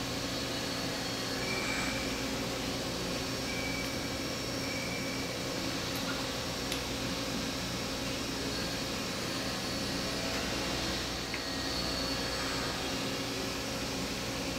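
Steady machine-like background hum with a constant drone, and a few faint clicks of small metal parts being handled.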